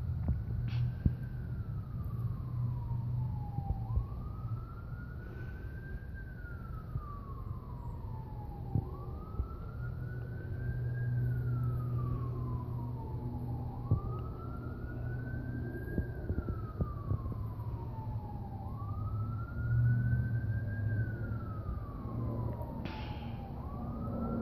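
A siren wailing, its pitch rising quickly and falling slowly in a cycle about every four seconds, over a steady low rumble.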